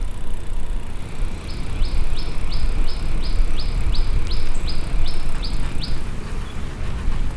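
A bird calling a run of about a dozen short, high, downward-sliding notes, roughly three a second, which stops about a second before the end, over a steady low rumble.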